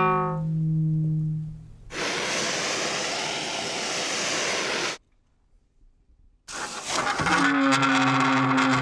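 Metal vibrating against dry ice, singing: a low tone with overtones that fades out, then about three seconds of loud rushing hiss that cuts off suddenly. After a second and a half of near silence, another low, wavering tone starts up.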